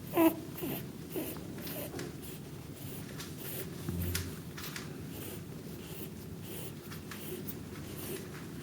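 Sleeping pet rabbit's breathing noises: a short squeaky wheeze right at the start, then faint, repeated soft snuffles. The owner wonders whether this is plain snoring or the beginning of coryza (snuffles).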